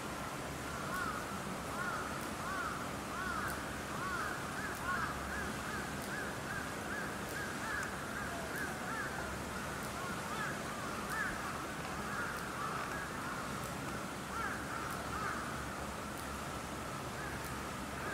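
A flock of birds calling: many short, rising-and-falling calls overlapping with no break.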